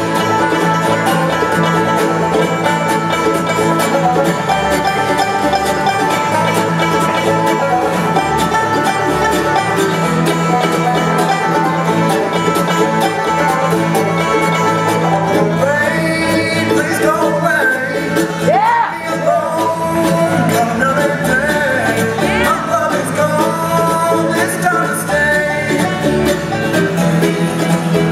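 Live acoustic bluegrass band playing a song: banjo, mandolin, fiddle, acoustic guitar and upright bass together. A lead voice comes in singing about halfway through.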